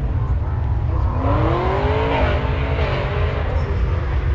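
A car engine revving once, climbing in pitch for about a second and dropping back, over a steady low rumble.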